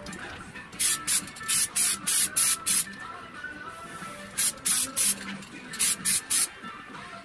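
Aerosol spray can of white undercoat spraying in short spurts: seven quick bursts, a pause, then two runs of three.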